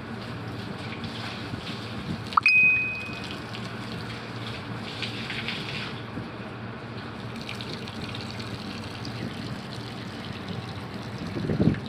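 Water running and splashing steadily while a house is washed down after a sandstorm, with a sharp clink and a short ring about two and a half seconds in and a dull knock near the end.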